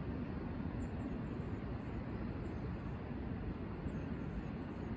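Steady low rumble of city ambience, mostly distant traffic, with a few faint high chirps, the first about a second in.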